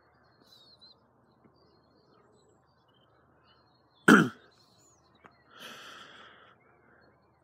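A single loud cough close to the microphone about four seconds in, followed about a second and a half later by a softer, breathy throat clearing. Faint bird chirps in the background.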